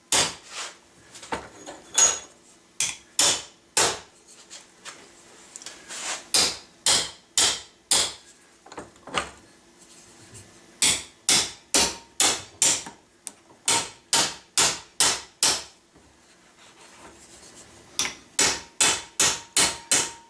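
Steel hammer striking a 3/8 inch metal rod in a bench vise, driving it down into a brass strip to form the strip into a U shape. The blows are sharp and ringing, about two a second, in runs broken by short pauses.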